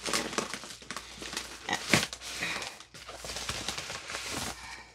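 Plastic bubble mailer crinkling and rustling as a cardboard box is slid out of it, with a sharp crackle about two seconds in.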